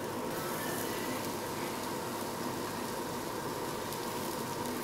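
Steady sizzling hiss of food cooking on a tabletop barbecue grill and hotpot, with a faint steady tone underneath.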